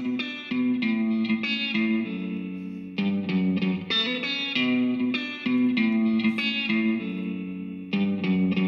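Instrumental music: guitar chords struck one after another, each ringing out before the next.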